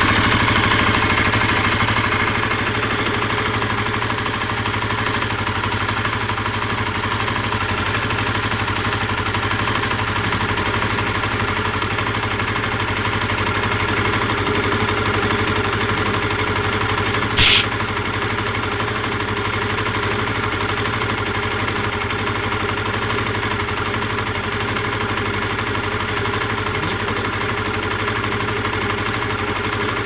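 Honda CBR125R's single-cylinder four-stroke engine idling steadily, with a fine fast ticking running through it and one brief sharp snap about halfway through. The spark plug cord is arcing, and the owner links it to a high-pitched ticking mechanical noise from the engine.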